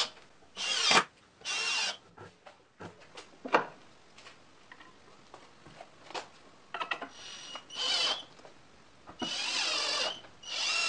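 Cordless drill driving wood screws in short runs, about four bursts of a few tenths of a second to a second each, with small clicks and knocks of screws and timber being handled between them.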